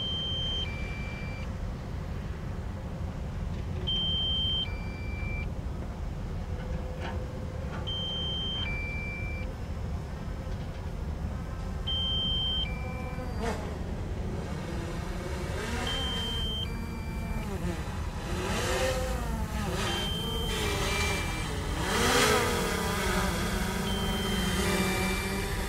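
Diesel excavators and dump trucks running, with a two-note electronic warning beep, high then low, repeating about every four seconds. From about halfway through, engine pitch rises and falls over and over as the machines work.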